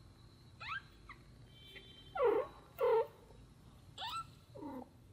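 Young kittens mewing: about six short, high-pitched cries, several sliding down in pitch. The two loudest come around two and three seconds in.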